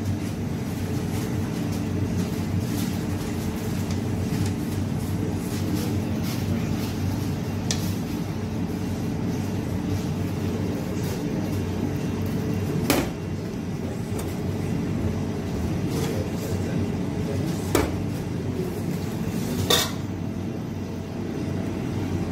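A steady low rumble throughout, with three sharp knocks about 13, 18 and 20 seconds in, as utensils strike the metal cake tin while batter is poured in and spread.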